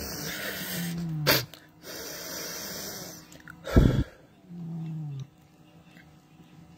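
A man groaning in low, falling tones and blowing out hard twice through a pinched nose: a sharp blast about a second in and a louder one near four seconds in.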